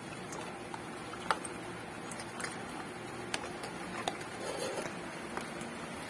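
A dog eating dry kibble from a stainless steel bowl: scattered crunching clicks, the sharpest about a second in, over a steady hiss.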